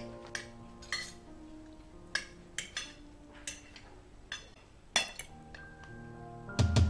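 Irregular light clinks of cutlery against dishes over soft background music with sustained tones. Just before the end the music swells with heavy drum hits and a deep boom.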